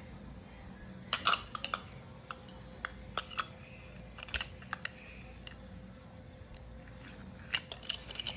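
Light plastic clicks and taps in scattered clusters as a clear plastic toy piece and its round blue plastic cap are handled and fitted together.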